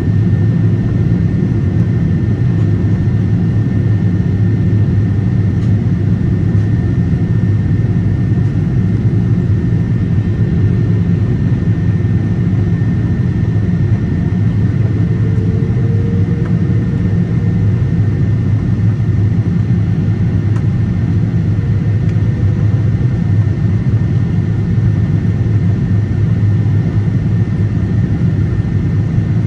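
Steady cabin noise inside a Boeing 777-300 on descent: a low, even rumble of the engines and rushing air, with a faint steady whine above it.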